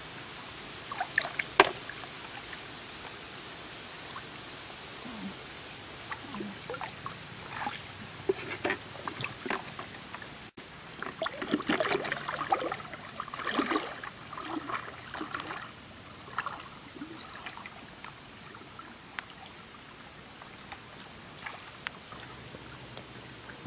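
Lake water sloshing and splashing as a person wades through it, busiest about halfway through. A couple of sharp clicks about a second and a half in are the loudest sounds.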